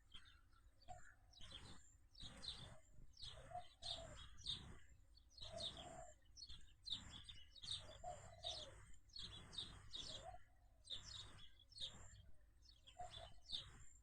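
Sparrows chirping faintly: many short chirps that fall in pitch, one after another in quick succession.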